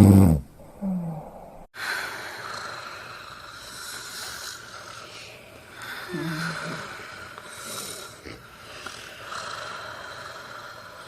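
Snoring: a loud, pitched snore ends about half a second in, followed by a short snort. After a brief dropout there is quieter breathing over a steady hiss, with a short snort about six seconds in.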